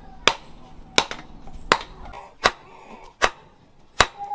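Hand-forging blows of a hammer on a glowing hot steel knife blank over a post anvil: six sharp strikes, evenly paced about three-quarters of a second apart.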